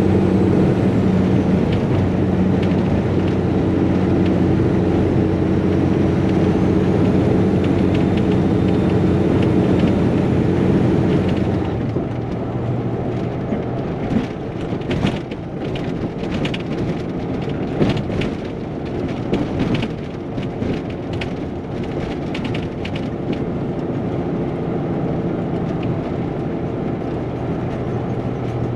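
Caterpillar diesel engine of a Peterbilt cabover truck running steadily under way. About twelve seconds in the sound changes suddenly, turning duller and a little quieter, with scattered sharp clicks and knocks over the next ten seconds.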